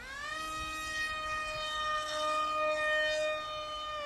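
Radio-controlled model plane's motor and propeller whining at high throttle. The pitch jumps up right at the start, then holds steady and high.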